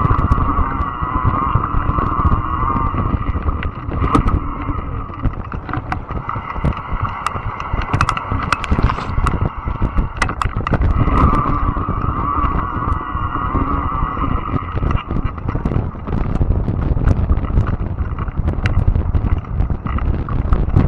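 Fat-tire electric bike ridden over a rough, overgrown trail: a steady low rumble of tyres and wind on the microphone, and many short clicks and rattles. A wavering high motor whine is heard at the start, fades, and returns for a few seconds past the middle.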